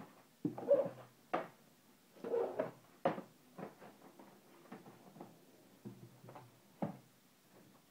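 Small cardboard boxes being handled by hand: picked up, slid against each other and set down, giving irregular scuffing and several sharp knocks.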